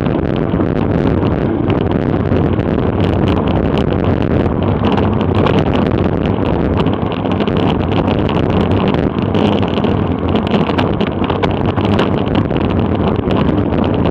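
Wind rushing over an action camera's microphone while riding a road bike at race speed: a loud, steady rush, with many small clicks and ticks throughout.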